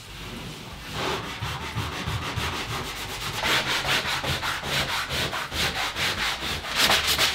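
Dried spackle on drywall being hand-sanded with a sanding block: quick back-and-forth scratching strokes that start about a second in and grow louder toward the end.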